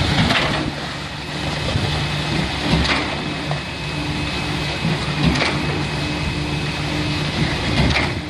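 Concrete pump's diesel engine running steadily, with a short knock four times about every two and a half seconds as the pump changes stroke.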